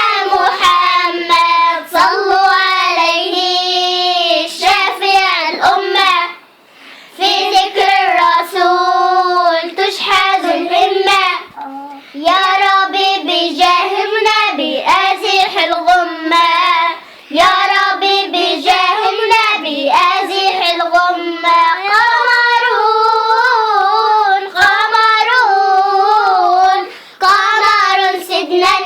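A girl singing an unaccompanied Arabic nasheed in praise of the Prophet, in long ornamented melismatic phrases. She pauses briefly about six and a half seconds in.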